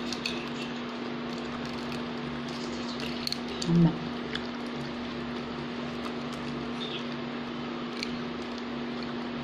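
Light rustling and small clicks of a paper packet being handled, over a steady hum, with a brief hummed vocal sound a little before four seconds in.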